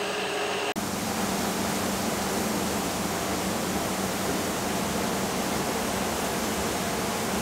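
Steady rush of running tap water, which starts abruptly under a second in.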